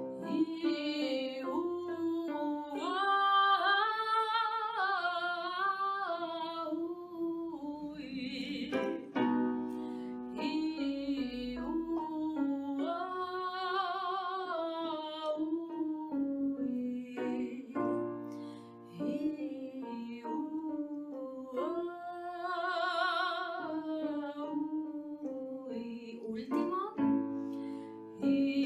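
A woman singing a messa di voce vocalise in lyric style over piano accompaniment: several melodic phrases stepping up and back down on different vowels, with vibrato on the held high notes.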